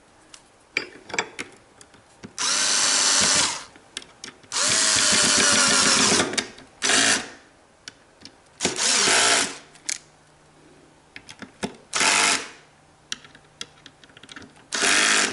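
Ryobi cordless drill-driver running screws into a keyboard stand's metal bracket in six short bursts of a second or so each, with small clicks and handling noises in the pauses between.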